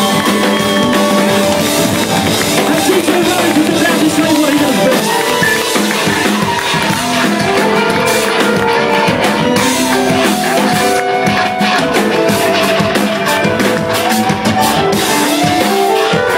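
Live band playing an instrumental passage: drum kit and electric guitar over DJ decks, with drum hits throughout.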